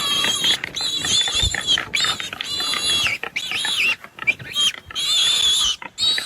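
Wild boar squealing in distress while a leopard attacks it: a string of high-pitched squeals, each lasting about half a second to a second, with short breaks between them.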